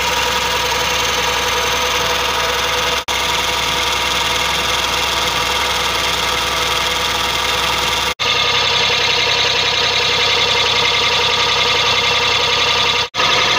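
Fiat tractor's diesel engine running steadily under load, driving a tube-well pump through a flat belt. The sound cuts out briefly about 3 and 8 seconds in, and after the second break it is thinner and hissier.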